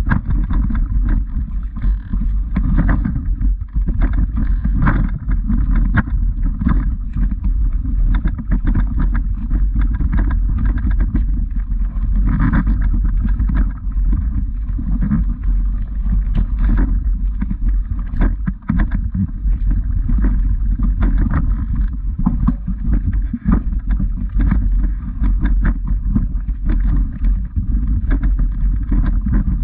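Footsteps crunching on a loose stone path, with many short scuffs and crunches over a steady low rumble of noise on the moving camera's microphone.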